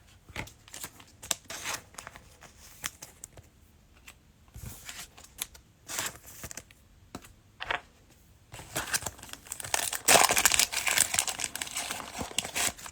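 Cellophane wrapper of a trading-card cello pack crinkling and tearing, with scattered light clicks of cards being handled; a longer, louder burst of crinkling comes about two-thirds of the way in.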